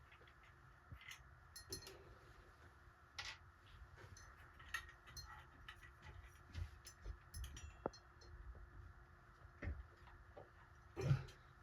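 Scattered small clicks and metallic clinks of parts and tools being handled while a ceiling fan's pull chain switch is replaced, with a louder knock near the end.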